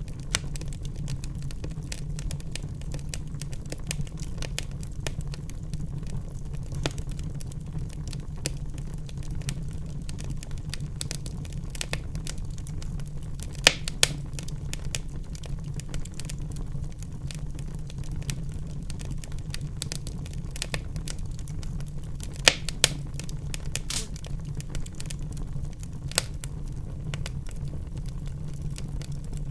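Fire in a fireplace crackling steadily over a low rumble of flames, with a few louder pops: one about halfway through and two in quick succession later.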